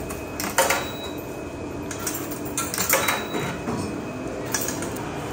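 Coins dropped one at a time into a coin-operated washing machine's coin slot, about four short metallic clinks, the sharpest about half a second in, over steady laundromat background noise.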